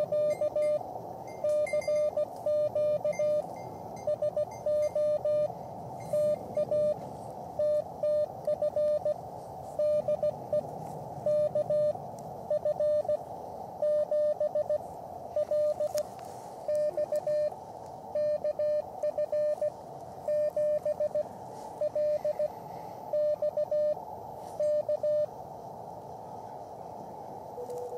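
Morse code (CW) sidetone from an Elecraft KX3 transceiver: a steady single-pitch tone keyed in dots and dashes as the radio's message memory sends a CQ call, over a steady hiss from the receiver. The keying stops about 25 seconds in, leaving only the hiss while the operator listens for a reply.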